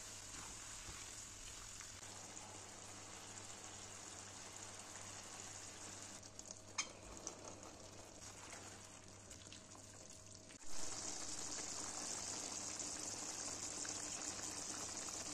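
An eggplant and tomato stew sizzling steadily in a frying pan, with a few sharp clicks about seven seconds in. About ten seconds in, the sound cuts suddenly to a louder, steady sizzling of the stew.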